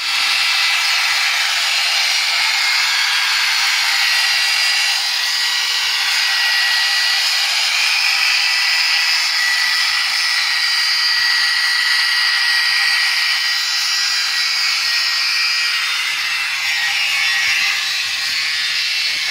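Angle grinder cutting through a metal control-arm bolt: a steady, high-pitched whine over a loud grinding hiss, running without a break.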